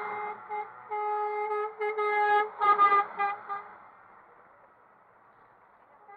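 Truck air horns sounding a series of blasts, long and short, over the first few seconds, then stopping.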